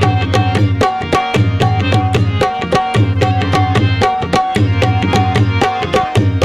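Instrumental break in a Punjabi dhamal: a hand drum plays a fast, even beat of about five or six strokes a second, with deep bass strokes in short groups, under sustained harmonium notes.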